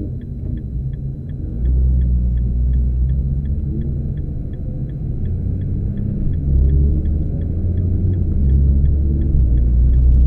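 Car engine and road noise heard from inside the cabin: a low rumble that grows louder about a second and a half in, with engine tones rising in pitch as the car accelerates. A faint, even tick repeats about two and a half times a second.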